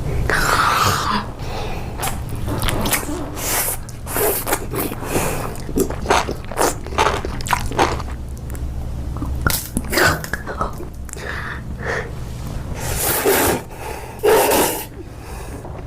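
Close-miked eating: crunchy bites and chewing in quick irregular clicks, with a few short breathy vocal sounds.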